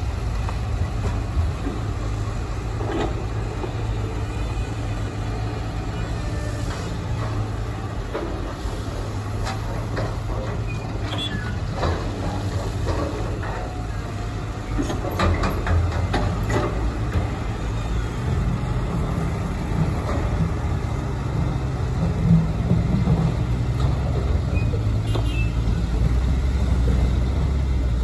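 Diesel engines of hydraulic excavators and dump trucks running steadily, a continuous low drone, with scattered knocks of rock and soil being dumped, most of them in the middle of the stretch.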